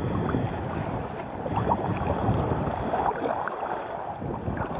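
Water splashing and lapping around a sea kayak, with wind buffeting the microphone.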